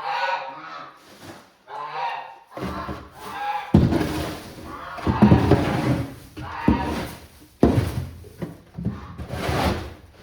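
Wooden brooder being cleaned out: a run of heavy thumps and knocks against wood, starting about four seconds in, with scraping noise between them.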